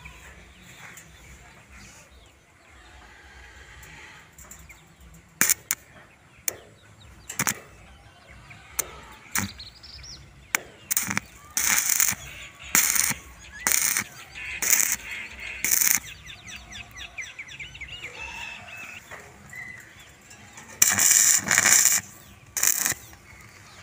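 Irregular sharp knocks and short crackling bursts from metalwork on steel door parts, about a dozen spread through, with a longer, louder burst near the end.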